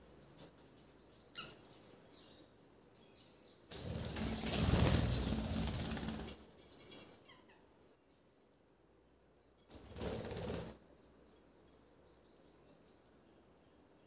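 Budgerigars flapping their wings in an aviary: a long flurry of wingbeats about four seconds in and a shorter one around ten seconds, with faint budgie chirps in between.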